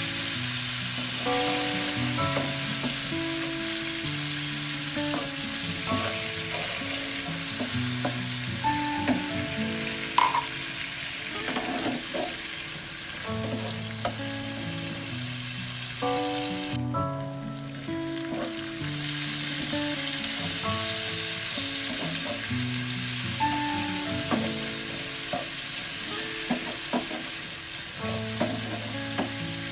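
Shallots, garlic and chilies sizzling in hot oil in a nonstick frying pan as a wooden spatula stirs them, with a few small knocks of the spatula against the pan. The sizzle cuts out briefly about halfway through. Background music with a simple melody plays throughout.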